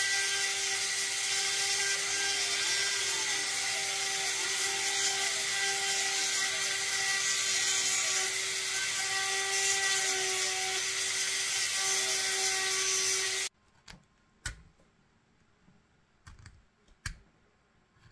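Small high-speed rotary tool running steadily, its pitch dipping briefly several times as it bites into the PVC. It cuts off suddenly about thirteen seconds in, followed by a few light clicks and taps.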